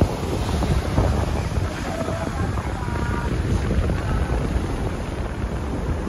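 Ocean surf breaking and washing up a sandy beach, with strong wind buffeting the microphone in a steady low rumble.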